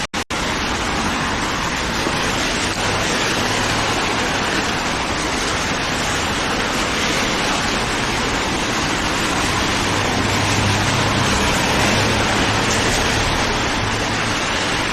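Steady hiss of rain and wet-street traffic, with a low rumble swelling about ten seconds in.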